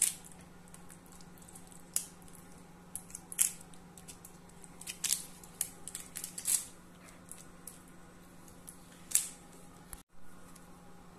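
Metal spoon scraping and clinking against a glass jam jar and a metal baking tin as cherry jam is spread, about a dozen short, sharp, irregular scrapes over a steady low hum. There is a brief dropout near the end.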